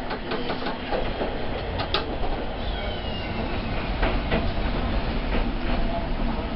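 Hankai Tramway streetcar running, heard from inside the car: a steady rumble of wheels and motors, with irregular clicks of the wheels over rail joints and a brief faint high squeal a few seconds in.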